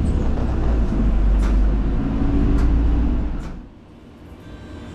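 Route bus running, heard from inside the cabin: a loud, steady low engine and road rumble with a few sharp rattling clicks. About three and a half seconds in the rumble falls away abruptly, leaving a much quieter background.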